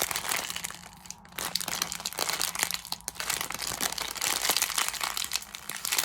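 Plastic packaging crinkling and rustling as it is handled, in irregular bursts with a couple of brief lulls.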